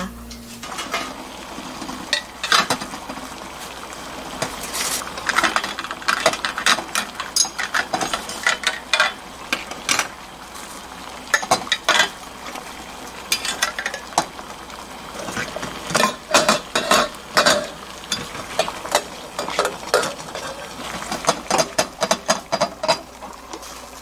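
Upturned glass jar knocking and rattling against the bottom of a stainless steel pot of boiling water, with irregular clicks over the bubbling of the water, as the jar is sterilized.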